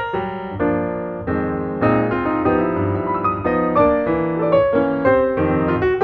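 Background piano music: sustained chords, with quicker runs of notes near the end.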